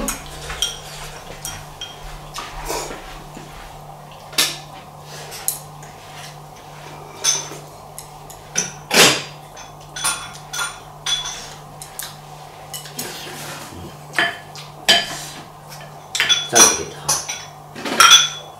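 Chopsticks clicking and scraping against a ceramic bowl while eating, in short irregular clinks that come thicker toward the end, when a ladle knocks against the pot and bowl to serve soup. A steady low hum runs underneath.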